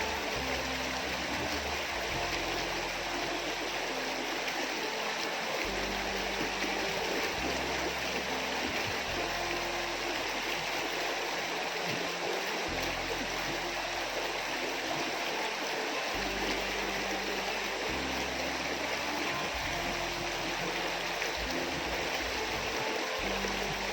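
Small river water flowing steadily, with background music of sustained low notes that change every few seconds.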